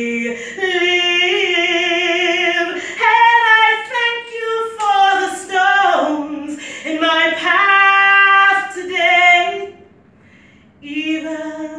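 A woman singing solo: long held notes with a clear vibrato, then a short break near the end before she sings on.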